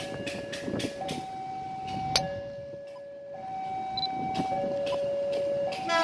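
Railway level-crossing warning alarm sounding: an electronic signal that swaps between a lower and a higher tone about once a second, the warning that a train is approaching. A horn sounds briefly right at the end.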